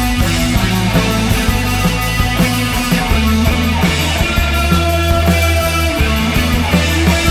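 A rock band playing live: electric guitar, synthesizer keyboards and drums with cymbals over a steady low bass line.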